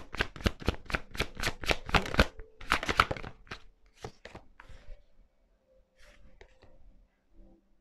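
A tarot deck being shuffled by hand: a quick run of card slaps, about five a second, for roughly three seconds. Then come a few scattered clicks and quieter handling as cards are drawn.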